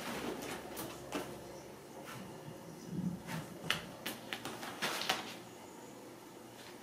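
Fabric pop-up play cube rustling, with sharp clicks and snaps as kittens bat at it and scramble in and around it. The loudest snaps come about halfway through and again a second later.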